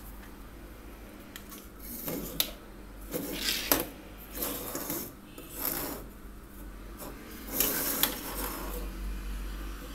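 Plastic bulb holders with LED bulbs being handled and slid across a tabletop: a string of short scraping and rubbing noises with a few sharp clicks, starting about two seconds in.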